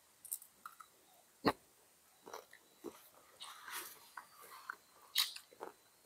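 A person chewing fried fish close to the microphone: quiet, irregular chewing and mouth sounds with small clicks, a sharper click about a second and a half in and another near the end.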